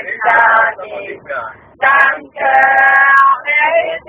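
People singing a song without accompaniment, in held notes with short breaks between phrases.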